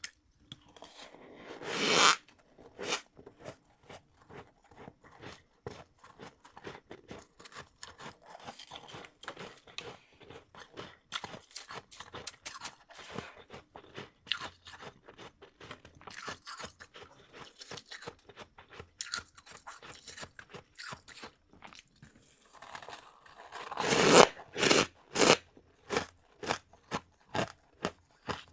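Close-miked biting and chewing of powdery freezer frost, a steady run of crisp little crunches. A loud bite about two seconds in, and a burst of loud crunches in quick succession near the end.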